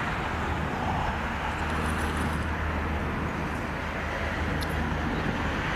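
Steady rumble of distant road traffic, an even low noise with no distinct events.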